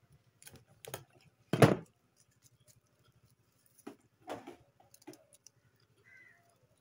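Flower crabs being cleaned by hand on a chopping board: scattered clicks and cracks of crab shell breaking, with a knife knocking on the board. The loudest knock comes about one and a half seconds in, and a few softer cracks follow near the middle.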